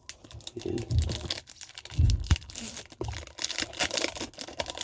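Foil Pokémon TCG booster pack wrapper being torn open and crinkled by hand: a run of irregular crackling rustles, with a couple of soft thumps about one and two seconds in.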